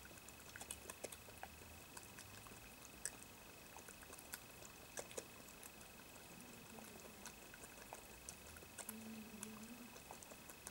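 European badger eating from a dish: faint, irregular clicks and crunches of chewing and of its snout against the dish.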